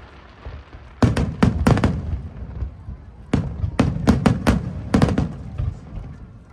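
Fireworks bursting in quick volleys of sharp bangs: a cluster of about five about a second in, and a longer run of bangs from about three to five seconds in, each with a booming low tail.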